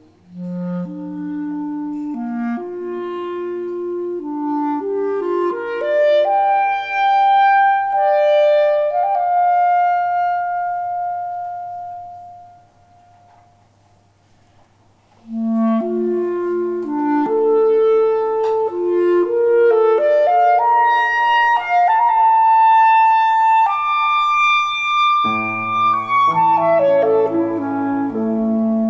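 Clarinet playing a slow, lyrical line of held notes that climbs step by step, with a pause about halfway through before the next rising phrase. About 25 seconds in, piano chords join underneath.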